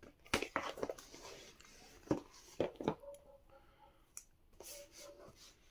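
Smartphone box and packaging handled by hand: a few sharp clicks and knocks, with rustling in between.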